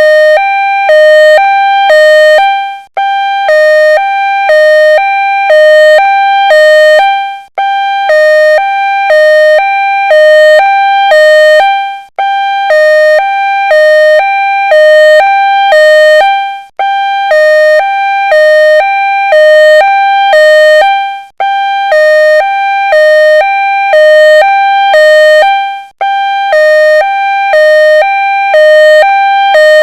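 Two-tone ambulance siren alternating steadily between a high and a low note, about one high-low pair a second. It breaks off briefly every four to five seconds, then starts again.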